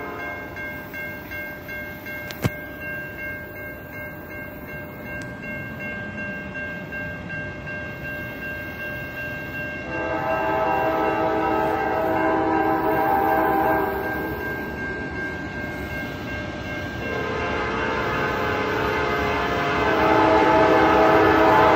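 Grade-crossing warning bell ringing steadily while an approaching Norfolk Southern locomotive's air horn sounds a long blast about ten seconds in, and another from about seventeen seconds that grows louder near the end. A single sharp click a couple of seconds in.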